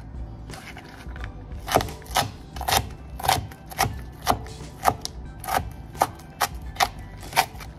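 Kitchen knife chopping celery finely on a thin plastic cutting mat over a wooden board, in an even rhythm of about two cuts a second.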